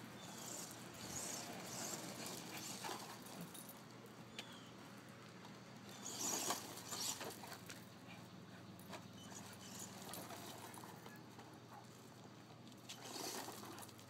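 Scuffling and crunching on loose gravel as a dog scrambles after a remote-control car, with louder brief bursts about six and a half seconds in and again near the end.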